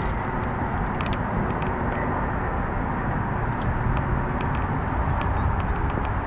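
Steady low rumbling noise with faint, scattered light clicks.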